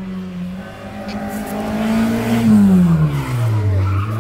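Rally car engine at full throttle on a special stage, revs climbing to a peak about two and a half seconds in, then dropping sharply as the car slows, and settling to a low steady note near the end.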